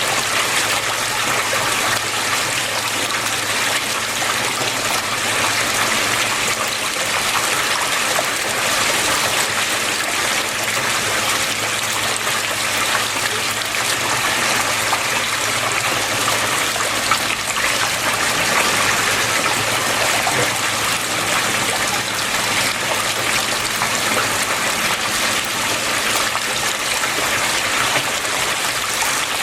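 Water flowing steadily, an even, unbroken rush with no change in level.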